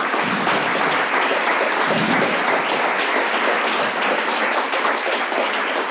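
Audience applauding, a dense and steady round of clapping.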